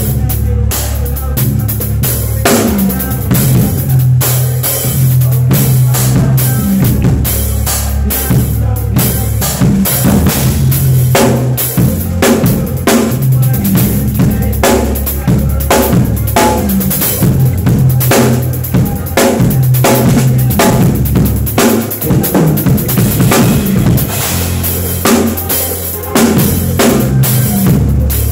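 Drum kit played up close in a fast, steady groove of kick drum, snare hits and cymbals, over a steady bass line that dips out briefly a little past the middle.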